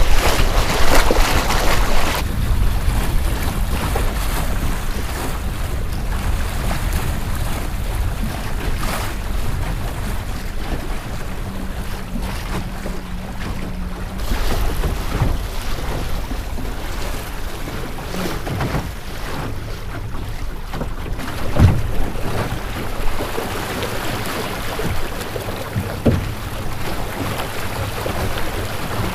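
Water rushing and splashing along the hull of a Melonseed sailing skiff under way, with wind buffeting the microphone. The spray is strongest for the first couple of seconds, and a couple of brief louder knocks come near the end.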